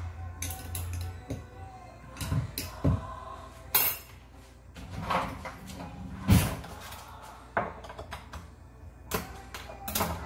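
Irregular knocks and clatters of kitchen items being picked up and set down on the counter, about eight separate strikes with the loudest about six seconds in, over faint background music.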